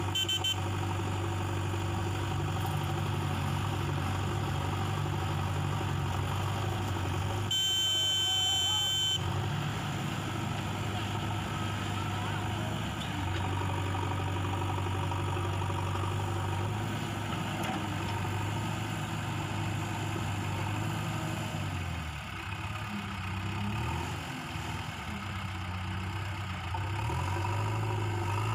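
JCB 3DX backhoe loader's diesel engine running steadily as the backhoe arm digs, its pitch dipping and wavering for a few seconds near the end. A brief shrill high-pitched sound cuts in about eight seconds in.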